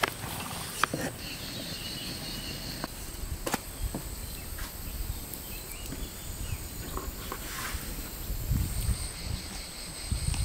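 Outdoor ambience of insects keeping up a steady high-pitched drone, with scattered light clicks and rustles. A low rumble comes in near the end.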